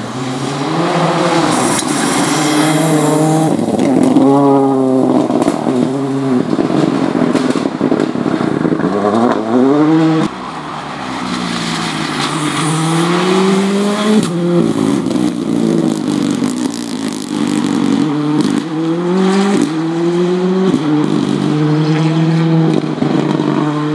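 Rally car engines at full effort as two cars pass one after the other, each engine rising in pitch and dropping sharply again and again through quick gear changes. The second car, a Ford Fiesta Rally2, comes in after a cut about ten seconds in: it revs up, lifts off and accelerates again through a bend.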